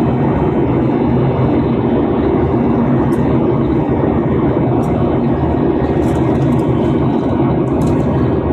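Airliner cabin noise during the climb after takeoff: the steady sound of the jet engines and the air rushing past the fuselage, heard from inside the cabin.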